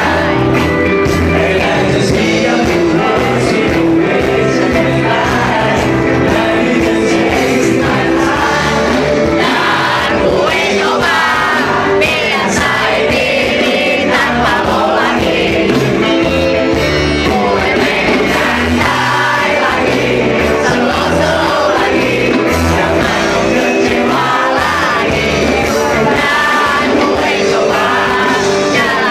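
Live band playing loudly through a PA: a male lead singer over electric guitars, bass guitar and drums.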